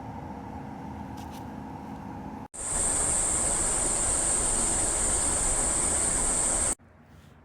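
Small electric fan of a fan-cooled work vest running steadily with a low hum, then after a brief break running much louder with a high-pitched whine, as at a higher wind setting, and cutting off abruptly near the end.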